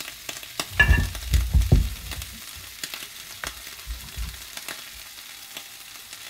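Butter and pancakes sizzling steadily in a frying pan, with a cluster of knocks and clatter in the first couple of seconds and scattered light clicks after.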